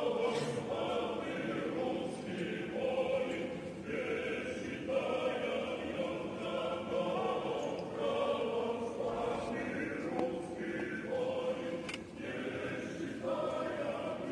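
A choir singing slow, held chords.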